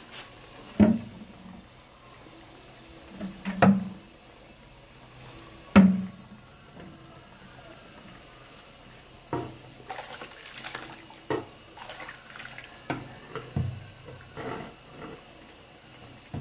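Metal ladle splashing and stirring in a pot of hot melted beeswax and water. It is loudest three times in the first six seconds, then gives a run of smaller splashes and crackles.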